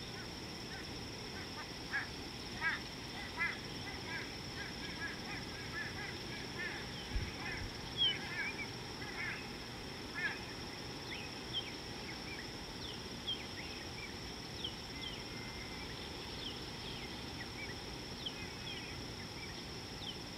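Birds calling: a run of short, harsh calls through roughly the first ten seconds, then scattered short, high chirps that fall in pitch, over a steady high-pitched hum.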